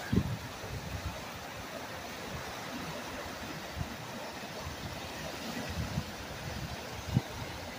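Steady rushing of a swollen, fast-flowing river in flood, with a few brief low thumps on the microphone, the loudest just after the start and near the end.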